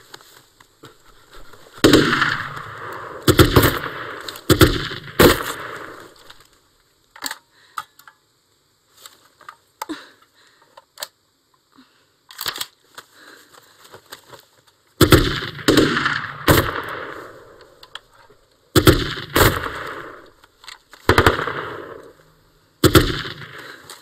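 About a dozen rifle shots, fired singly and in quick pairs, each with an echoing tail. They come in two spells, split by a lull of faint clicks about halfway through.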